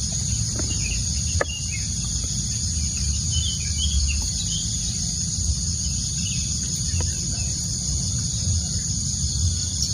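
Insects, crickets or cicadas, keep up a steady high drone, over a low rumble. A few short bird chirps come about three to four seconds in.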